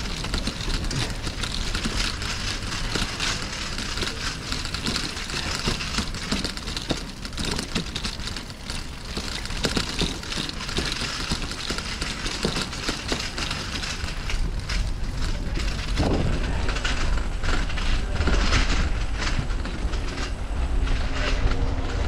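Bicycle rolling over brick paving: a steady rumble from the tyres with many small rattles and clicks from the bike. The low rumble grows louder about two-thirds of the way through.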